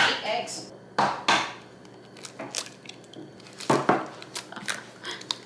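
An egg being cracked over a stainless-steel mixing bowl: a few sharp taps and knocks of shell, with the crunch of the shell breaking, the loudest a little before four seconds in.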